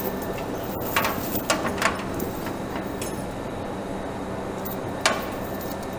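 Steel link chain clinking and rattling as a homemade tire chain is hung over a tractor's rear tire: a few sharp clinks about a second in and one more near the end, over a steady low hum.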